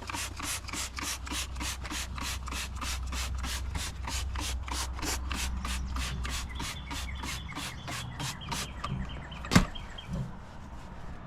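Rapid back-and-forth scrubbing of a brush on a truck floor mat, about four strokes a second. The scrubbing stops about three quarters of the way in, followed by one sharp knock, the loudest sound, and a smaller one.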